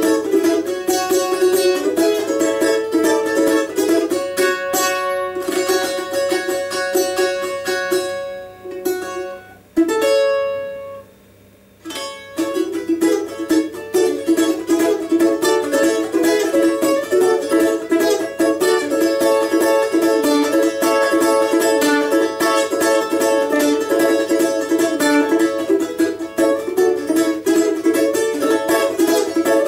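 Four-string balalaika with a doubled first string, tuned to open D major with the paired strings in unison, played with fast, dense strumming. About a third of the way in, the strumming breaks off for a few seconds, a single chord is struck and left to ring out, and then the strumming starts again.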